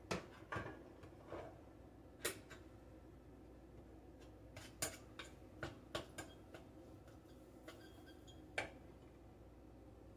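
A plastic spatula stirring and scraping in the nonstick inner pot of a small electric rice cooker. It gives a dozen or so light, irregular taps and clicks.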